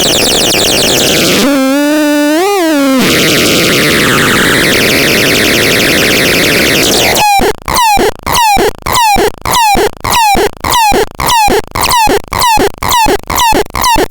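Electronic synthesizer sounds. A noisy, sweeping hiss-like texture, then a short pitched tone that wobbles and bends up in pitch, then more noise sweeps. About halfway in it changes to a rapid series of short blips, each dropping in pitch, about two or three a second.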